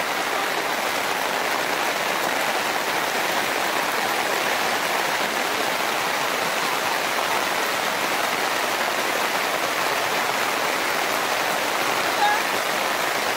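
Steady rain falling, mixed with the rush of floodwater running over the road.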